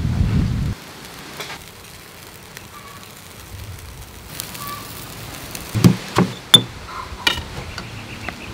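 Chicken feet grilling on a wire rack over a charcoal stove, a faint steady sizzle and crackle, with a few sharp knocks about six to seven seconds in. A loud low rumble cuts off under a second in.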